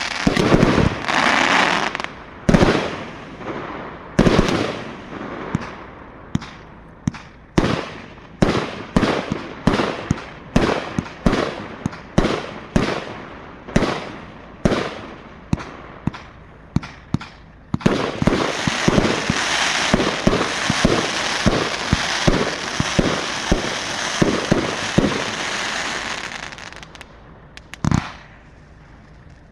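Pyro Specials 'King of the Sky' firework cake firing: a rapid run of shots, about two a second, each ending in a bang, followed by a dense crackling spell of about eight seconds that dies away, with one last shot near the end.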